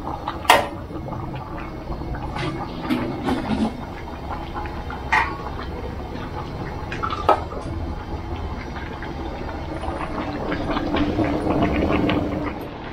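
Cooking sounds from a large pot of chicken massaman curry: liquid sloshing as it is stirred, with scattered sharp knocks of utensils. The sharpest knock comes about half a second in, and the sound grows a little louder near the end.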